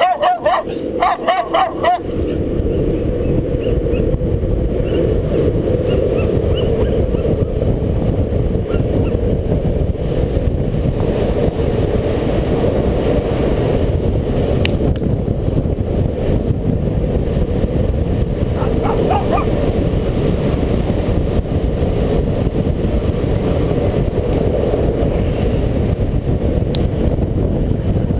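A dog barks several times in the first two seconds. Then a steady, loud rumble of wind on the microphone and longboard wheels rolling on asphalt takes over for the rest of the fast downhill run.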